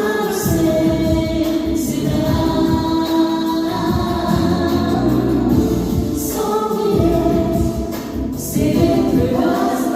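A song with choir-like voices singing long held notes over an instrumental backing.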